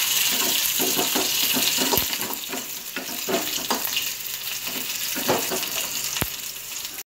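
Shallots, garlic cloves and green chilli sizzling in hot oil in a kadai while a steel spatula stirs them, scraping and knocking against the pan in irregular strokes over the steady hiss of the frying.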